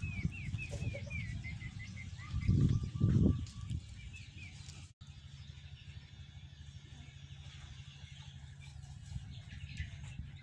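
A small bird chirping, a quick run of short falling chirps over the first second and a half. Two loud low thuds come about two and a half and three seconds in, and after that there is a low steady hum.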